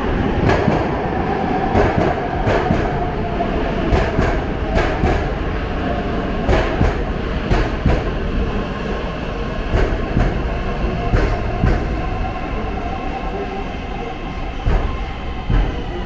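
Metro train pulling into the station along the platform: a steady rumble with repeated sharp clicks of the wheels over the rails and a whine that falls slightly in pitch as it slows, the noise easing off near the end.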